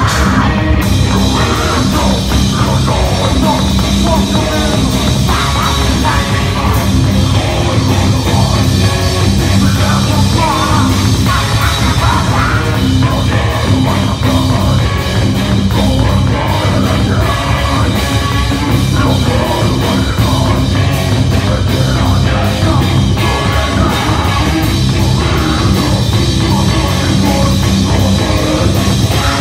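Live rock band playing loud, with electric guitar, bass guitar and drum kit.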